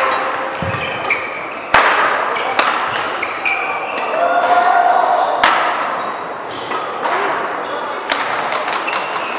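Badminton hall sounds: scattered sharp racket hits on the shuttlecock and short shoe squeaks on the court floor, ringing in a large hall over a background of voices.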